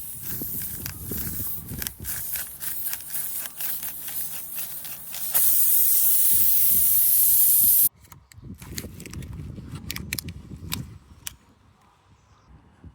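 Compressed air hissing out loudly at a tyre valve or hose fitting for about two and a half seconds, starting and cutting off suddenly. Clicks, knocks and rubbing from handling the kit come before and after it.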